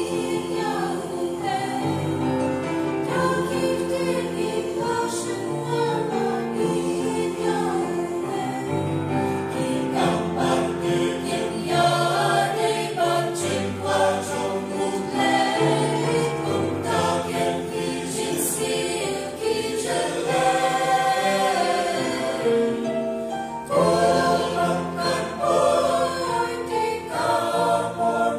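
Mixed church choir of women and men singing in parts, in sustained phrases.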